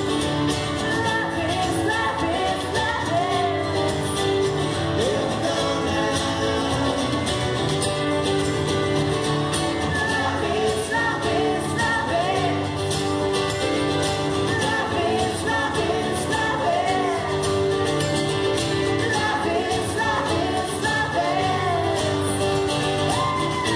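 Live acoustic pop song: steadily strummed acoustic guitars with a melody line that bends up and down above them.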